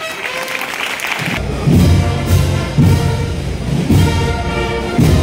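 A Holy Week procession band playing a processional march, with brass holding notes. Heavy drum beats come in about a second and a half in.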